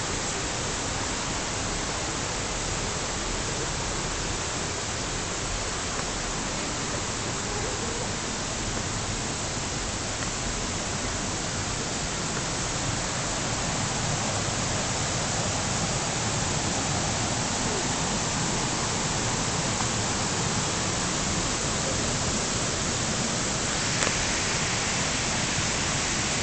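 Steady rush of falling water from a mountain waterfall, growing a little louder about halfway through, with a single click near the end.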